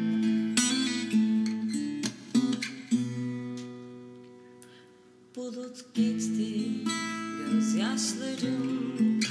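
Acoustic guitar strummed in chords. About three seconds in, one chord is left to ring and fade out, and the strumming starts again about six seconds in.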